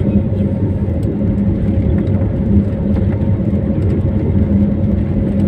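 An engine running steadily: a constant loud drone with a held hum.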